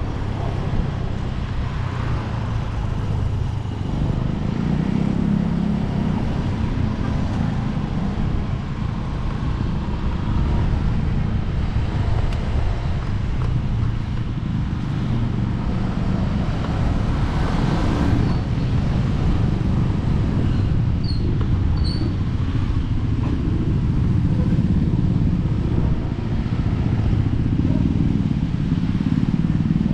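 Motorcycle engine running steadily while riding, with continuous road rumble and small changes in engine pitch.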